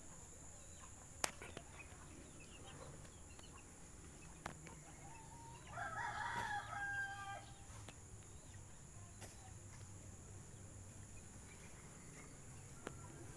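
A rooster crows once, a drawn-out call about six seconds in that lasts about a second and a half. A single sharp click comes about a second in.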